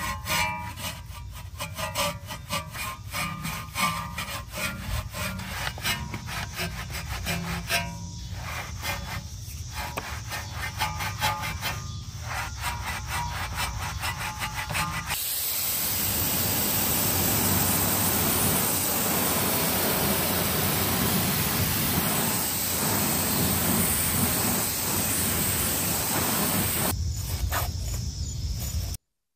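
Brisk back-and-forth scrubbing of a surface with a brush or pad for about fifteen seconds, then a steady rushing noise from a cleaning machine.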